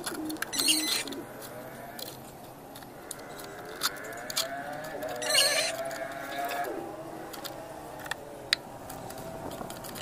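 Ratchet wrench clicking in two short bursts, about half a second in and again around five seconds, with single sharp metal clicks between. The ratchet is turning the bolts of a makeshift puller plate to press a seized CVT roller boss off its shaft.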